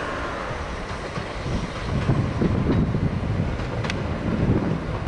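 Passenger multiple-unit train running over pointwork: a low, uneven rumble of wheels with a couple of sharp clicks, mixed with wind buffeting the microphone.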